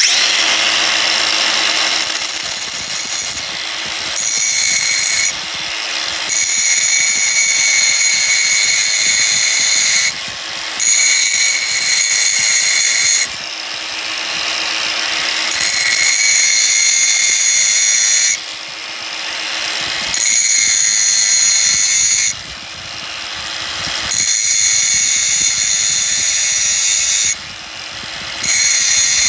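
Drill Doctor 500X drill bit sharpener switching on and running, its wheel grinding the tip of a heat-damaged drill bit with a loud, hissing grind. The grinding drops away for a moment every few seconds, then returns.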